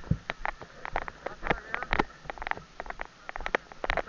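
Handling noise from a jostled camera: irregular sharp clicks and knocks, several a second, over low rumbling bumps.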